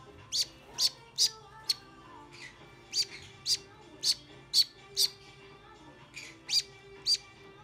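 Baby green-cheeked conure chick giving short, high-pitched begging chirps while being hand-fed. There are about eleven chirps, in quick runs of two to four with short pauses between.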